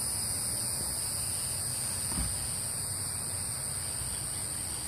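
Steady high-pitched chorus of crickets or similar night insects, two unbroken trilling tones, over a constant low rumble.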